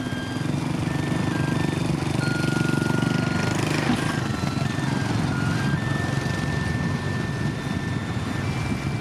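Heavy diesel earthmoving machinery running steadily with a deep engine rumble that swells a little a couple of seconds in. Background music with high held notes changing pitch plays over it.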